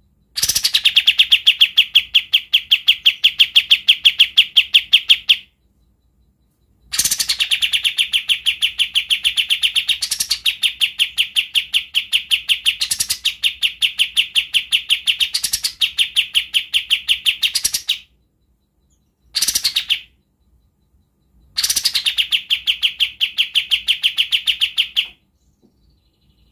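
A caged kapas tembak songbird sings its rapid, rough rattling trill (besetan), with long runs of fast repeated notes. There is a run of about five seconds, an eleven-second run whose tone shifts a few times, a brief burst, and a final run of about three and a half seconds, with short pauses between them.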